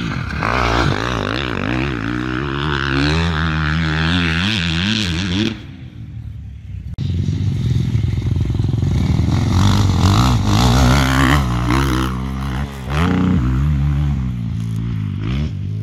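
Motocross motorcycle engines running hard, their pitch rising and falling rapidly as the throttle is worked. The sound drops away briefly about five and a half seconds in, then comes back louder.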